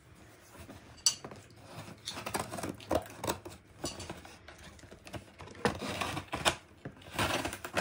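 Scissors slitting packing tape on a cardboard box: a sharp click, then irregular scraping and rustling as the blade drags along the tape and the box is handled.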